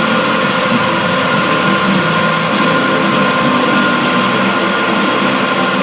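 CNC milling machine cutting an aluminium gearbox cover: a steady high spindle whine over a continuous noisy hiss of machining.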